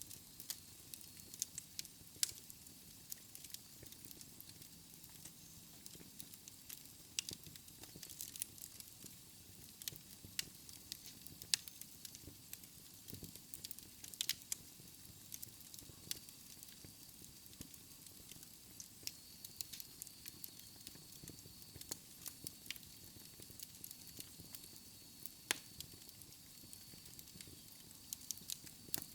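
Wood fire burning in a fireplace, crackling with irregular sharp pops over a soft steady hiss.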